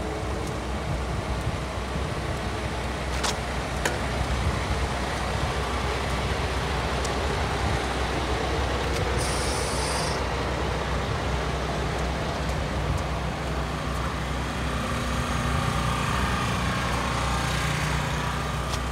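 Heavy diesel engines of road-construction trucks and machinery running steadily at low speed, a deep continuous drone. A short hiss sounds about nine seconds in.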